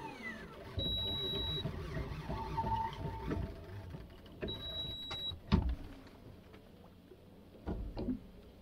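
Electric deep-drop fishing reel's motor running, winding line in, with two short steady high tones. About halfway through there is a sharp knock, the loudest sound.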